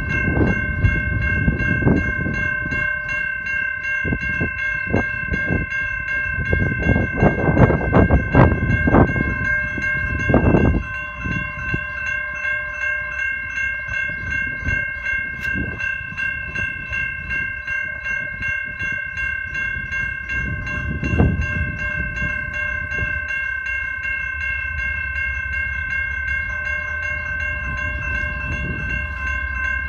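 Grade-crossing warning bell ringing steadily at about two strikes a second. Wind buffets the microphone through the first ten seconds. The low rumble of the approaching diesel-hauled freight train grows near the end.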